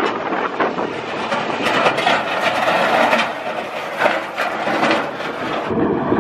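Steel box scraper dragged over frozen ground, a loud, dense scraping clatter with many quick knocks.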